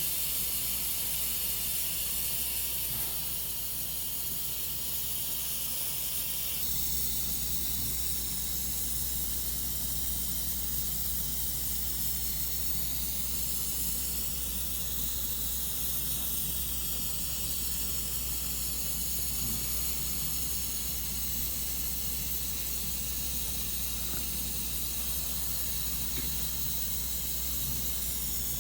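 Steady hiss over a low hum, with the hum growing louder about seven seconds in.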